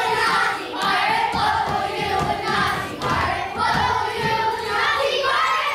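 A group of young children singing together in unison, in held phrases of about a second each, with low thumps of feet on the stage beneath the singing.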